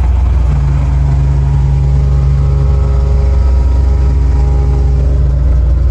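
The 472 V8 of a 1973 Cadillac Coupe DeVille running at a steady speed with the air conditioning on, heard from inside the cabin. About half a second in a steady hum with several higher tones joins the engine's low rumble, then fades near the end.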